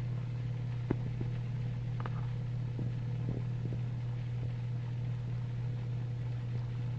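Steady low hum, with a few faint clicks in the first few seconds.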